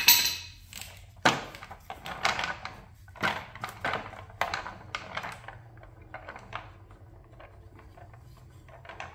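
Metal clicks, knocks and rattles from parts being handled on a small diesel engine, a quick run of them over the first five seconds, then fewer and fainter.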